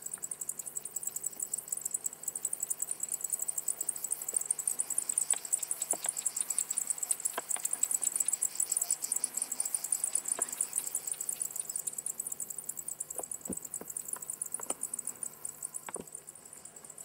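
Cicadas singing in a continuous, rapidly pulsing high buzz that weakens somewhat near the end, with a few faint scattered clicks.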